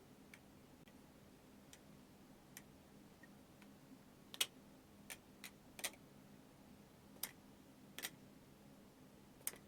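OSP Matrix balisong (butterfly knife) being flipped: its handles clicking against the blade at irregular intervals, about a dozen sharp clicks, the loudest about halfway through.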